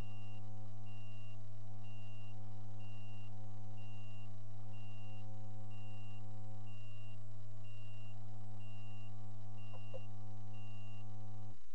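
A stationary vehicle's engine idling with a high electronic warning beep repeating about every two-thirds of a second. The beeping stops near the end, and the engine hum cuts off suddenly just after, as the engine is switched off.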